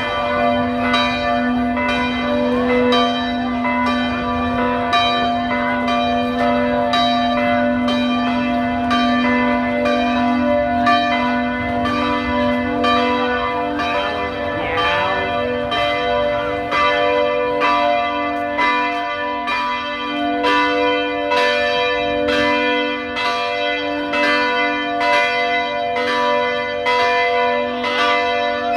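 Several church bells ringing steadily in a continuous peal, a new stroke about once a second over the lingering hum of the others.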